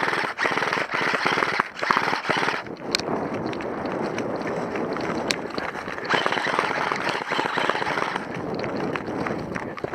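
Airsoft guns firing in rapid clattering bursts, two long strings of fire with scattered single cracks between them.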